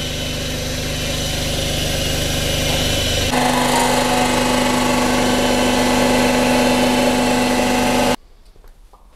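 Cylinder head resurfacing machine running, its rotating cutter skimming the face of an aluminium cylinder head from a Ford Focus ST225's five-cylinder engine: a steady machine hum that grows louder, with a held whine, about three seconds in. It cuts off abruptly about a second before the end.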